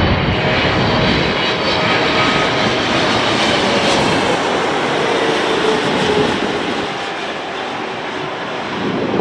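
Boeing 777-300ER airliner's GE90 turbofan engines passing low overhead on landing approach: loud, steady jet engine noise with a faint whine that drops in pitch about five seconds in, then the noise eases off slightly.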